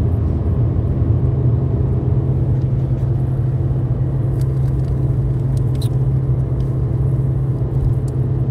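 Steady low drone of a car heard inside its cabin, with a few faint clicks about halfway through.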